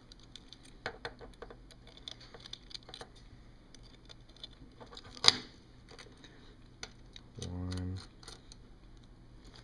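Small metallic ticks and clicks of a tiny screwdriver turning the screws out of a polished aluminium phone surround frame, with one sharp, louder click about five seconds in.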